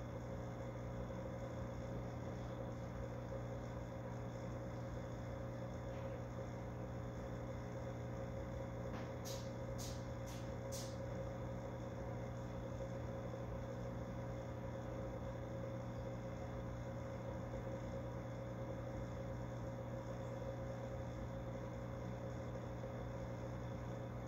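Steady electrical hum of running fish-tank equipment, with an even hiss under it. A quick run of four faint, sharp ticks comes about ten seconds in.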